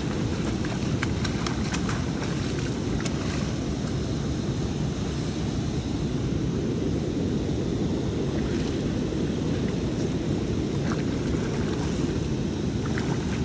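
Steady rush of churning, foaming river water below a dam spillway, with wind buffeting the microphone and a few faint clicks.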